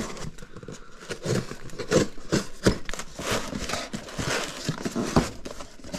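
Cardboard box being slit open with a pocketknife and its flaps pulled back: irregular rustling and scraping of cardboard with light knocks.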